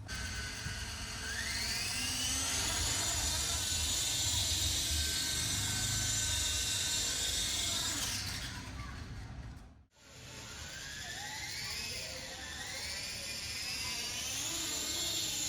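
Electric motor and rotor of a small 3D-printed flybarless RC helicopter, a high whine that spools up over the first few seconds and then holds steady. About ten seconds in it stops abruptly, then comes back, rising and falling in pitch with the throttle.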